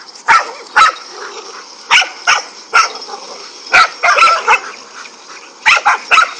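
Dogs barking in sharp, irregular barks as they attack a king cobra, with a flurry of barks about four seconds in and another near the end.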